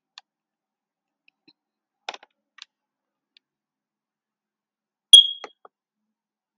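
A few quiet clicks, then one short, high-pitched electronic beep about five seconds in, with a fainter click or two right after it.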